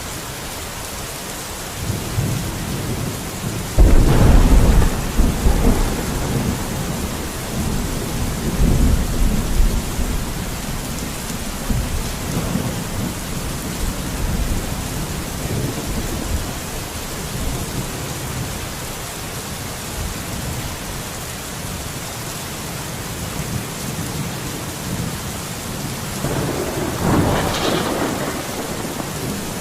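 Steady rain with thunder: a deep rolling rumble begins about two seconds in, breaks into a loud crack near four seconds and rumbles on for several seconds. A second, sharper thunderclap comes near the end.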